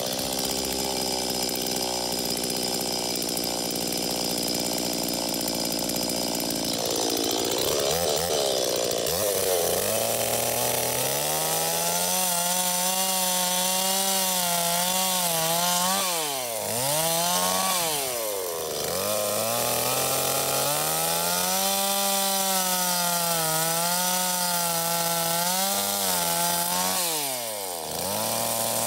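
Two-stroke chainsaw cutting through a wooden fence stay post to square off its end. It revs high and even at first, then its pitch drops and wavers under load as the chain bites into the timber, with the engine speed dipping and picking back up a few times.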